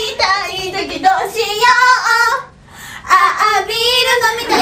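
Two young girls singing a pop song together without accompaniment, breaking off briefly about halfway through.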